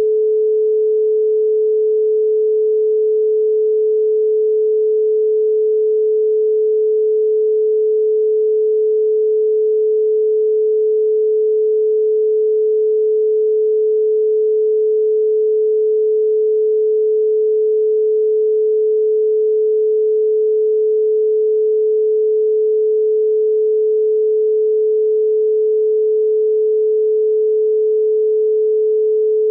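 A pure sine tone at 432 Hz, held steady and unchanging.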